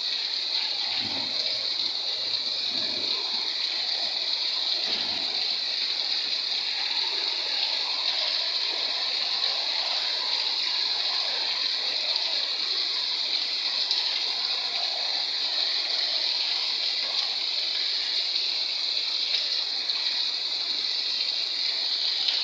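Rain falling steadily, a constant even hiss of water.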